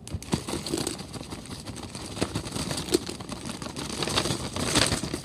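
Small plastic-wrapped packets being tipped out of a cardboard box: wrappers crinkling and rustling, with many light knocks and clicks as the items tumble out.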